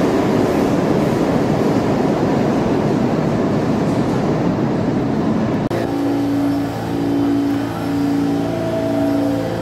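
Subway train running, a loud steady rush of wheel and rail noise. It breaks off suddenly a little over halfway through and gives way to a steadier hum with a tone that pulses on and off.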